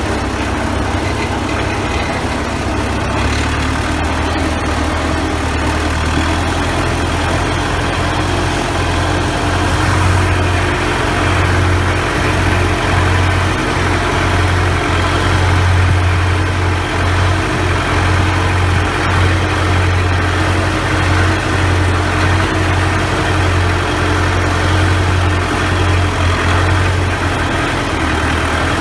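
Case 580B backhoe's four-cylinder diesel engine running steadily at low speed, its low drone growing stronger about six seconds in.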